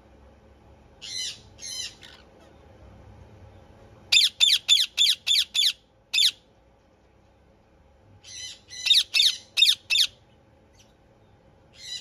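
Indian ringneck parakeets squawking: loud, shrill, harsh calls given in fast runs of about four a second, a pair early, two runs of six or seven in the middle, and a single call near the end.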